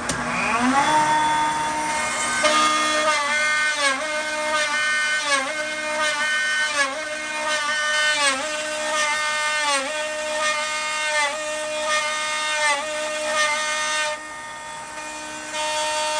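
CNC router spindle with a quarter-inch bit spinning up, its whine rising in pitch over the first second, then milling a pocket in walnut: the whine dips in pitch at a regular beat, about once every 0.7 seconds, as the cutter works through the wood. A dust collector runs steadily underneath, and the cutting goes briefly quieter near the end.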